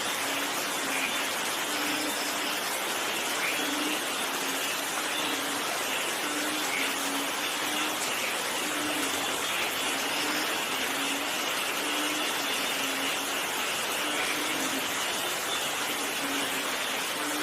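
Steady heavy rainfall, an even continuous hiss, with a faint short low note repeating about once a second underneath.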